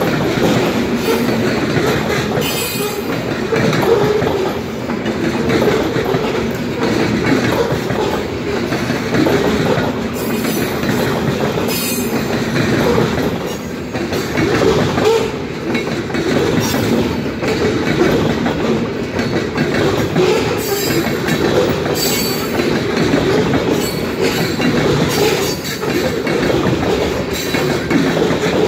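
Freight train of covered hopper and tank cars rolling steadily past, with a continuous rumble of steel wheels on the rails and brief high-pitched wheel squeals now and then.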